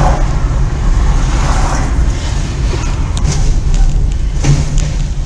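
Steady low rumble of a car's engine and road noise heard from inside the cabin through a dashcam microphone, with a few faint clicks.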